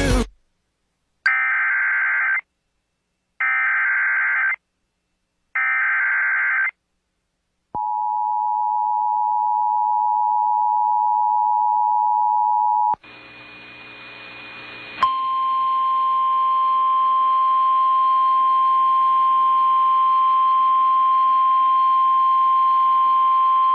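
Emergency Alert System alert tones: three short bursts of screeching SAME header data, about a second each, then the steady two-tone EAS attention signal for about five seconds. Then comes a short stretch of hissy static and hum, and from about fifteen seconds in a long steady single-pitch tone, the NOAA Weather Radio alert tone.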